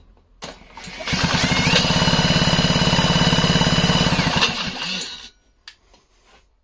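Cordless impact wrench spinning a McCulloch 1-72 chainsaw's flywheel by its nut, turning the engine over fast for about five seconds: a motor whine over a rapid even pulsing, stepping up in pitch a little after a second in and winding down near the end. The engine does not fire, as the ignition gives no spark.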